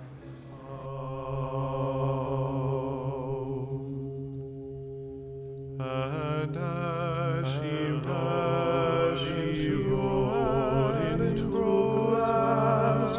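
Chant-like vocal music over a steady low drone: held, steady notes at first, then from about six seconds in several voices with vibrato enter and the sound grows louder.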